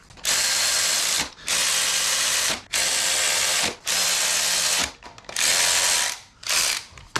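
A power ratchet runs flywheel bolts down into a small-block Chevy, snugging them in six runs of about a second each with short pauses between. The last run is brief.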